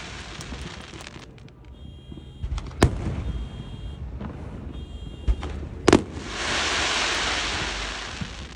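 Fireworks going off: sharp bangs about three seconds in and a loud double bang about six seconds in, each followed by a hiss lasting about two seconds. A car alarm beeps faintly in the background, set off by the fireworks.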